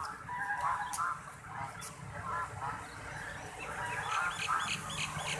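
Big white domestic ducks calling repeatedly in short honking calls, with a quick run of about six high peeps from the ducklings near the end.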